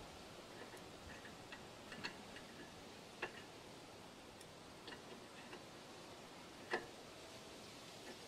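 Faint, irregular metallic clicks of a wrench working a lawn tractor's oil drain plug as it is tightened.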